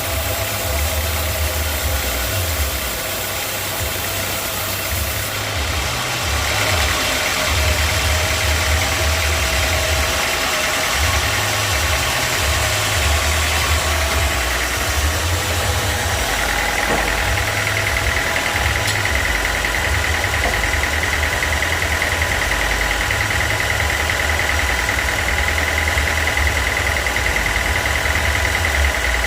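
Sawmill machinery running steadily, with an engine-like hum. A high, steady whine joins about six seconds in and grows stronger a little past halfway.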